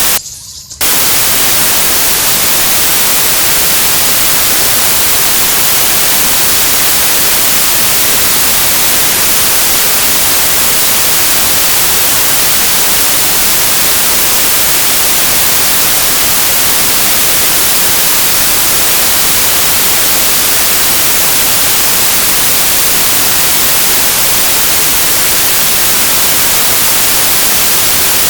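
Loud, steady static hiss like white noise, cutting in abruptly just under a second in and staying unchanged.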